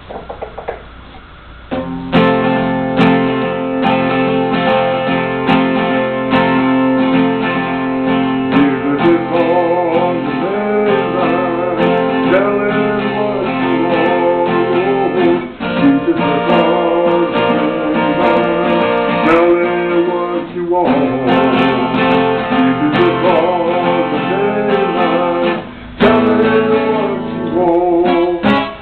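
Acoustic guitar strummed and picked, coming in loudly about two seconds in.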